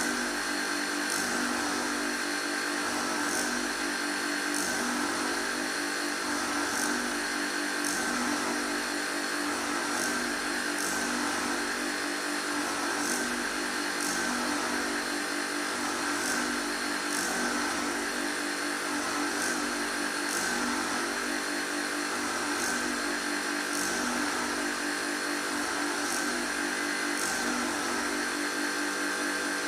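Surface grinding machine running: a steady motor hum with fixed tones, and faint short high clicks recurring every one to two seconds in an uneven repeating rhythm.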